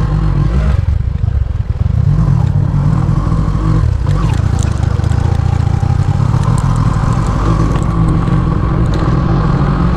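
Bajaj V15's single-cylinder engine running as the motorcycle is ridden along a dirt and gravel track. The sound eases briefly about a second and a half in, and the engine pitch rises a little around four seconds in.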